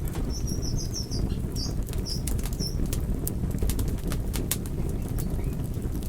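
Log fire in a fireplace burning, with a steady low rumble and frequent sharp crackles and pops. A string of short high chirps runs through the first three seconds or so.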